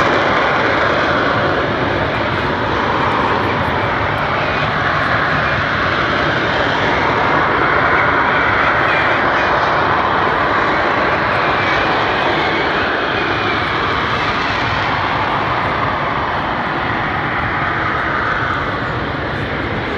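Harrier jump jet's Rolls-Royce Pegasus turbofan running loud and steady, a continuous jet noise that wavers slowly in pitch and strength without fading away.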